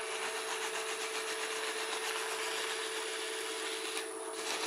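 Wood lathe running with a steady hum while something rubs with a rasping sound against the small spinning wooden handle. The rubbing breaks off briefly about four seconds in.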